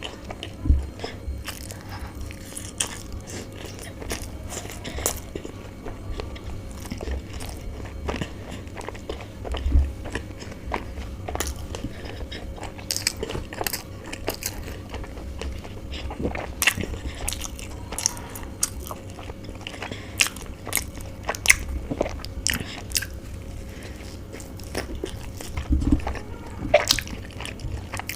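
A person chewing and biting into chicken bao buns close to the microphone, with irregular mouth clicks and occasional crunches.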